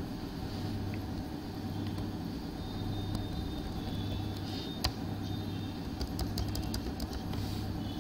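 Steady low hum in the background, with single keyboard key clicks about three and five seconds in and a quick run of clicks in the second half as characters are deleted in a text editor.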